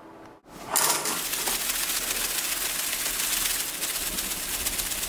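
A loud, steady rushing hiss that starts abruptly under a second in.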